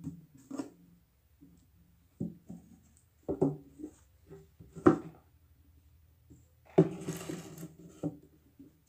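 Small glass aquarium being handled and set down on a hard surface: a series of knocks and taps, the loudest about five seconds in, and a rustling scrape around seven seconds.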